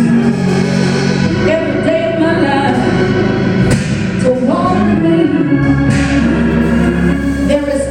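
Church worship music: singing over sustained organ-like chords and a held bass line, with the bass note changing a couple of times.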